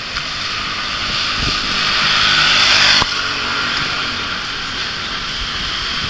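Road traffic: a passing vehicle's tyre and engine noise builds to a peak about three seconds in, then drops off suddenly, with a lower steady hiss after.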